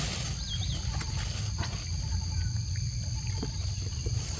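Steady high-pitched insect drone over a low rumble, with scattered small clicks as a young monkey chews mango, and one brief chirp about half a second in.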